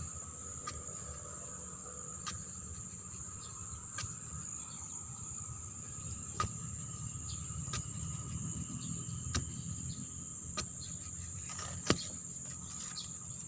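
Steady high buzz of an insect chorus, with short soft knocks about every second and a half, the sharpest near the end.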